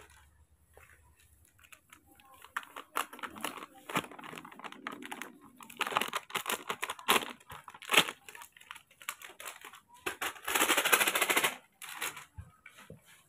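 A foil pouch crinkling and rustling as powder is poured from it into a plastic container, with scattered light clicks and taps. About ten seconds in there is a louder steady rustling hiss lasting about a second and a half.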